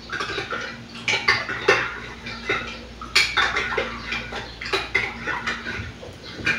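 Spoon and small cup clinking and tapping at a table in irregular, quick clinks, as a drink is stirred or mixed by hand.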